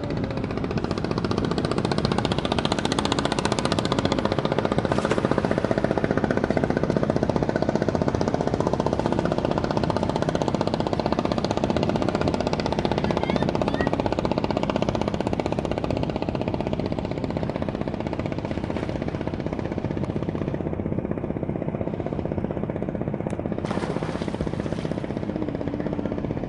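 Boat engine running loud and close with a rapid, even knocking beat, easing off somewhat in the second half.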